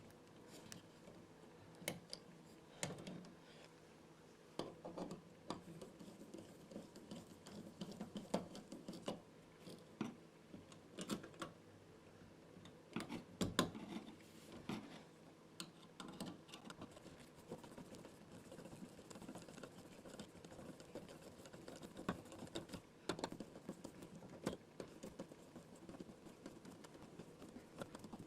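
Faint, irregular clicks, taps and scraping as stiff house wiring and a light switch are handled and pushed back into the wall box.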